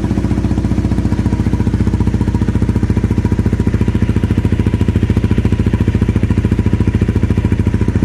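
Motorcycle engine running steadily through a Delkevic aftermarket exhaust, with an even, fast exhaust pulse and no revving.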